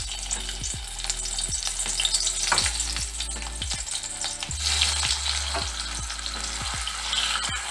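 Sliced bitter gourd frying in hot mustard oil in a kadai, sizzling steadily while it is stirred, with frequent short scrapes and knocks.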